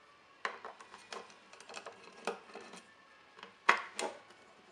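Screwdriver and small metal parts clicking and clinking against the metal housing of a Fairchild F800 flight recorder as it is being unscrewed and taken apart, in scattered single knocks with the sharpest clink near the end.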